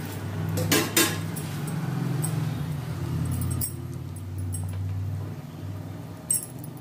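Thick tamarind fish curry bubbling at a rolling boil in a clay pot, a steady low blubbing. Two sharp knocks come about a second in and another near the end, as fish pieces go into the pot.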